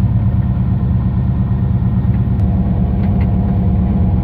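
Sailing yacht's inboard engine running steadily at constant speed, a loud, low, even drone.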